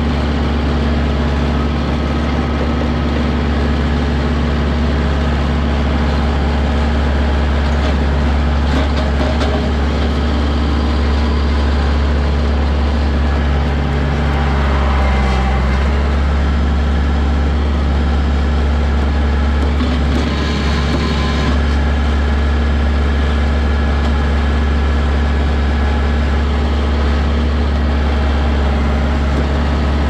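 Compact tractor engine running at a steady speed, a deep even drone, as the loader grapple pushes brush.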